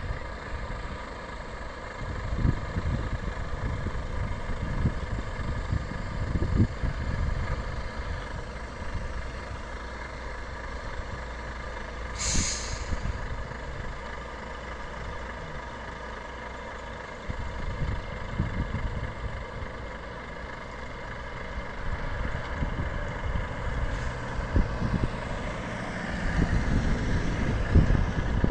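Semi-truck's diesel engine running at low speed as it slowly pulls a heavy low-loader trailer, with one short hiss of air brakes about twelve seconds in.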